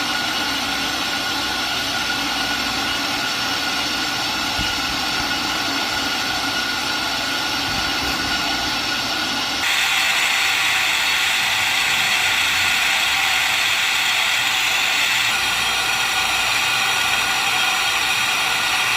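Metal lathe running while turning a car brake disc, a steady machine noise. About halfway through it steps up suddenly, louder and higher, and it shifts again slightly near the end.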